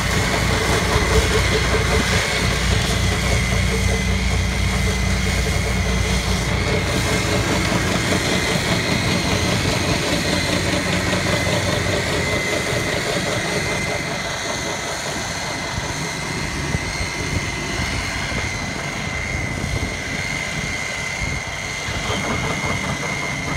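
Tractor diesel engines running steadily under trenching and sand-backfill work, with a steady high whine over them. The deep engine hum is strongest early and weakens about halfway through.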